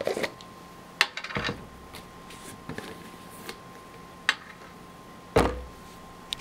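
Plastic peanut butter jars being picked up and set down on a glass tabletop: several sharp knocks and some handling clatter, the heaviest a thud about five seconds in.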